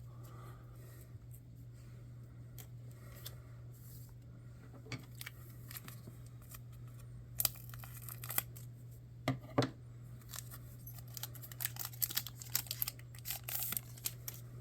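Trading cards being handled and sorted by hand: scattered light clicks and rustling, busier in the last few seconds, over a steady low hum.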